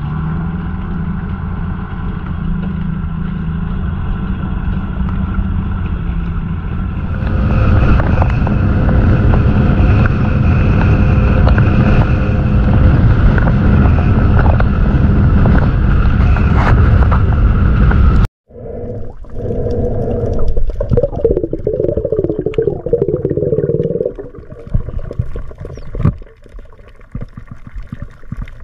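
A small fibreglass boat's motor runs steadily and gets louder and harsher from about a quarter of the way in as the boat speeds over open water. It cuts off suddenly about two-thirds through. Underwater sound follows: gurgling, then scattered faint clicks.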